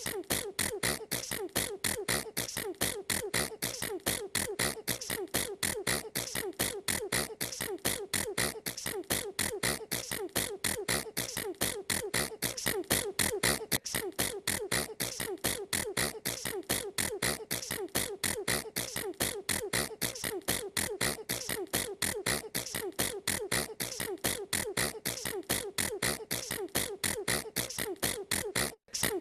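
A girl's sneezes repeating rapidly and evenly, about three to four short sneeze bursts a second, with a brief gap near the end.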